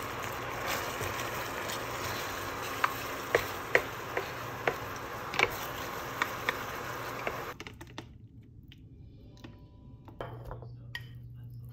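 Caldereta stew bubbling in a pan on an induction cooktop while a plastic spatula stirs it, with a dozen or so sharp clicks of the spatula against the pan. About seven and a half seconds in the bubbling cuts off, leaving quieter scraping as the stew is scooped out and a steady low hum.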